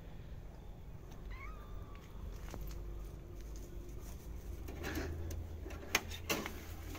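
A kitten giving a short, faint meow about a second and a half in, then two sharp clicks close together near the end.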